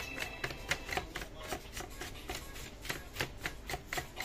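A paintbrush scrubbing and flicking over the plastic paper-feed parts inside an HP LaserJet CP1025 colour laser printer: a quick, irregular series of short, scratchy strokes and light clicks.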